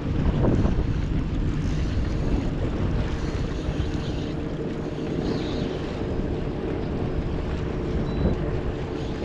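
Wind buffeting the microphone over water noise from a kayak on the lake, with a faint steady hum throughout.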